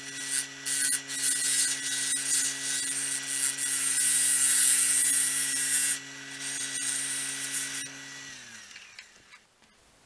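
A round cutter shears a spinning cedar blank on a Grizzly wood lathe running at about 2,000 rpm, giving a steady hiss of cutting over the motor's hum. The cutting stops between about six and eight seconds in. After that the lathe is switched off and winds down, its hum falling in pitch and fading.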